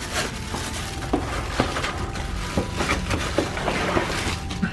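Plastic bag crinkling and cardboard box rustling as a plastic-wrapped electric drill is pulled out of its cardboard box, with many small sharp crackles throughout.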